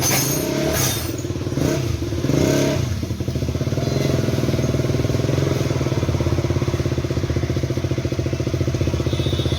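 Motorcycle engine running, uneven for the first few seconds, then settling into a steady idle with a fast, even pulse from about three seconds in.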